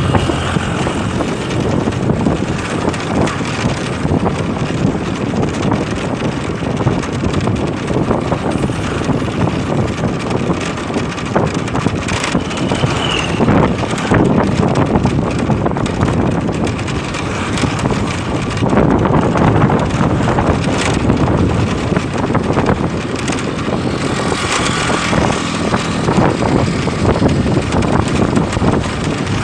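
Motorcycle riding along: steady wind rush over the microphone mixed with the engine and road noise.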